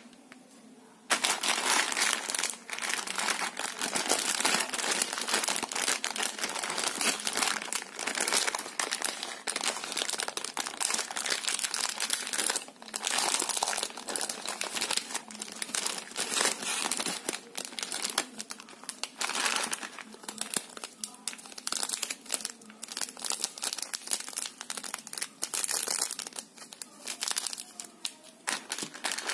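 Plastic Indomie instant-noodle packets crinkling and crackling as hands handle and open them, a dense run of crackles starting about a second in.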